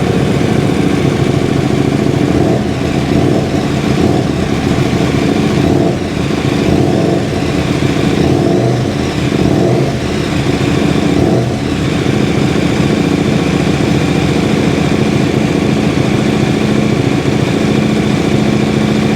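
KTM 1290 Super Duke GT's 1301 cc V-twin running just after a start, revs rising and falling a few times in the first half, then settling to a steady idle.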